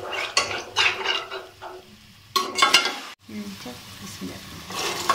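Steel slotted spoon stirring and scraping a sizzling masala of fried onions, tomatoes and green chillies in hot oil and a little water in an aluminium pot, in a series of short, uneven strokes.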